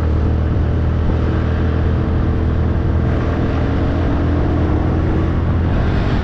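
Honda scooter engine running at a steady cruise, its low hum even throughout, with wind noise rushing over the microphone.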